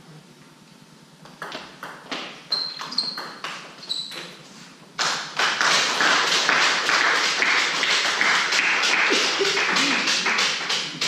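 Table tennis rally: the celluloid ball clicking off bats and table about a dozen times at an uneven pace. About five seconds in, the spectators break into loud applause for the point, which runs for about six seconds and stops near the end.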